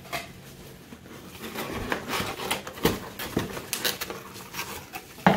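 Plastic bubble wrap and packing material crinkling and rustling as a wrapped item is pulled out of a cardboard box, with a sharp knock near the end.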